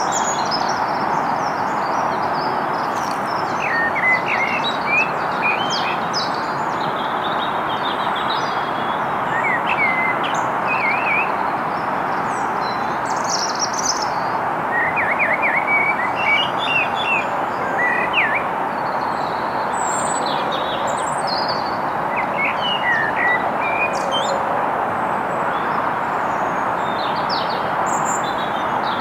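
Small songbirds chirping in short high phrases, heard again and again over a steady rushing background noise.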